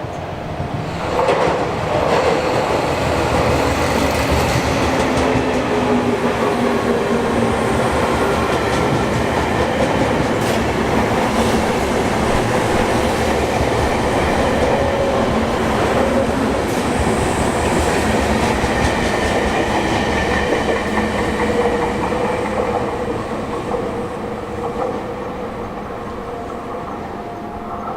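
A Sotetsu Line electric train passing close by. It builds up about a second in, stays loud for most of the pass, and fades over the last several seconds.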